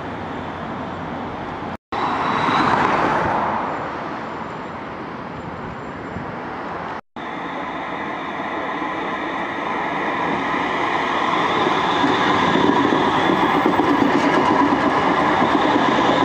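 Manchester Metrolink Bombardier M5000 tram running on its rails, with a rumble of wheels. In the second half it approaches and passes close by, and a steady electric whine of several notes grows louder. The sound breaks off twice into brief silent gaps.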